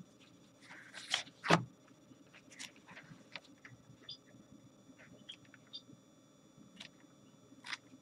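Old, worn paper book being handled and its pages turned: soft paper rustles and a few sharper crackles, the loudest about a second and a half in and another near the end.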